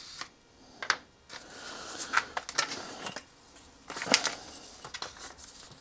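Handling noise on a workbench: plastic covering film and its paper backing crinkling, with a few sharp taps and clicks as a steel ruler is set down and shifted on it, the loudest about four seconds in.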